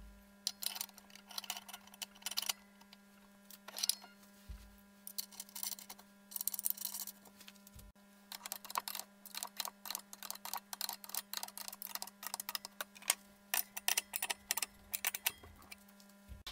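Quick irregular metallic clicks and rattles from a loose .404 saw chain and a tensioner bolt being handled as a chainsaw bar's chain tensioner is fitted and adjusted by hand.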